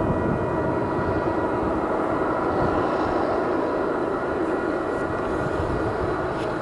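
Canadian Pacific freight train led by GE ES44AC diesel locomotive CP 8795, its engine running in a steady deep rumble with a steady whine above it.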